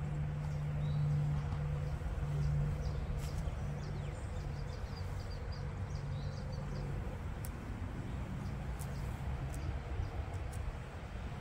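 Outdoor ambience: a steady low hum that swells and dips, with small birds chirping now and then. Light scratching of an uncapping scratcher raking the wax cappings off a honey frame, with a few faint clicks.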